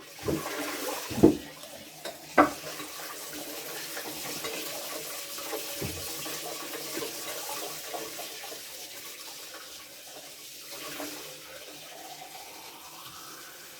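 Steady running water, with a few sharp knocks in the first couple of seconds and a faint rising tone near the end.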